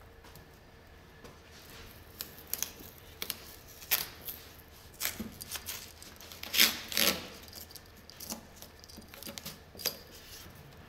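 Adhesive tape being unrolled and pressed along car window glass: scattered short rasps and crackles, the loudest pair about six and a half to seven seconds in.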